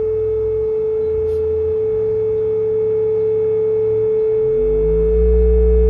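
Electronic test tones: a steady pure sine tone holds one pitch while a second, lower tone beneath it shifts in pitch in small steps as its frequency is adjusted. About four and a half seconds in, the lower tone glides to a new pitch and gets louder.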